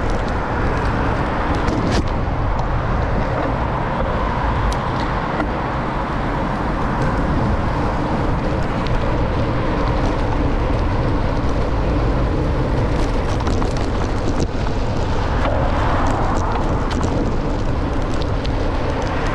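Steady city traffic and road noise heard from a moving bicycle, with cars passing.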